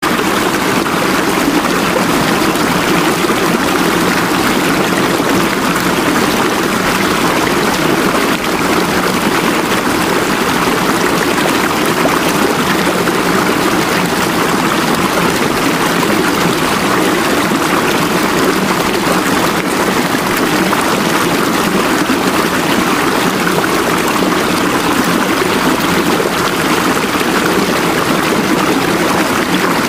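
Steady, unchanging running-water sound, loud and even throughout. It is the masking layer of a subliminal affirmation track.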